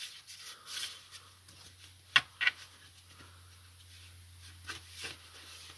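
Stroller wheel parts being handled for reassembly: a few sharp clicks and light knocks, two of them close together about two seconds in, over a faint steady low hum.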